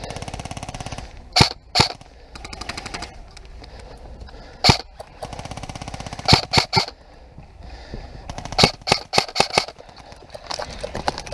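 Airsoft guns firing rapid full-auto bursts, a fast even rattle heard several times. Louder single sharp cracks are scattered between the bursts.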